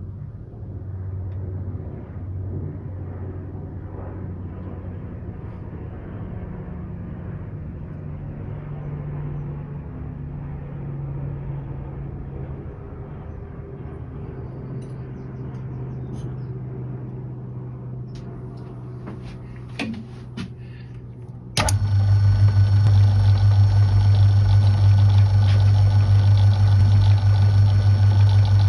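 A faint low hum with a few light clicks, then about three-quarters of the way through a metal-turning lathe starts suddenly and runs steadily: a loud electric-motor hum with several steady higher tones, its collet chuck spinning a thin steel rod.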